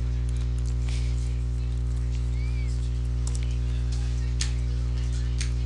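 Steady low electrical mains hum on the recording, with a few sharp computer mouse clicks and key taps.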